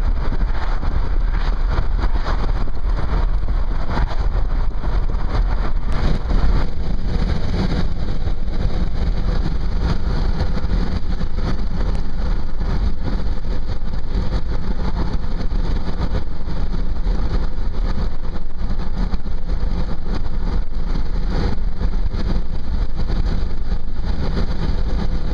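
Steady road and wind noise inside a car cruising on a highway: a low rumble of tyres and engine under a hiss of wind, which grows a little heavier about six seconds in.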